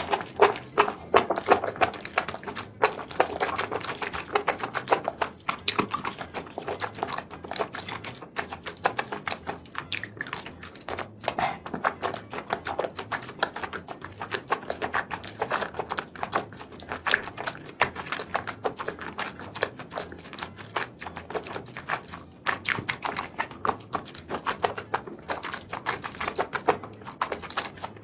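Close-miked chewing of spicy sauced seafood: a dense run of wet, sticky clicks and smacks from the mouth, many per second.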